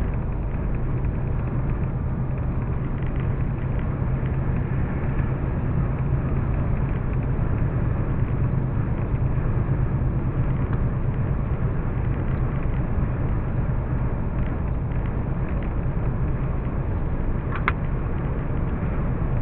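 Steady engine and road noise of a vehicle cruising on a highway, heard from inside the cab through a dashcam, with a constant low hum. A brief high chirp sounds near the end.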